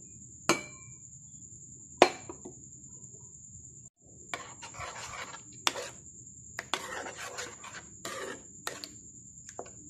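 Metal spoon stirring watery masala gravy in a frying pan, scraping and clinking against the pan in repeated strokes through the second half. Two sharp knocks come in the first two seconds, and a faint steady high whine runs underneath.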